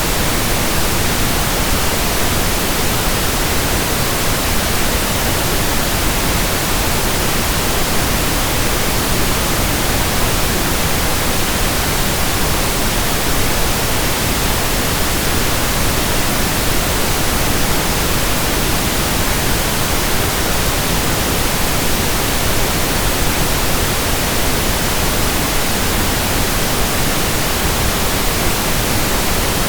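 Pink noise: a steady, even hiss spread across all pitches, with no changes or events.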